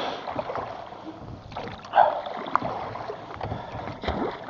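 Oars of a small rowboat dipping and pulling through river water, with splashing and a sharp knock near the end.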